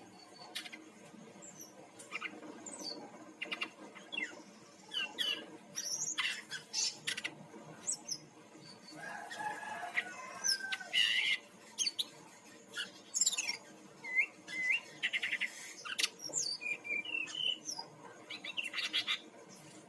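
Brown-chested jungle flycatcher singing a varied run of short high whistles, slurred chirps and quick trills, with its phrases coming every second or so.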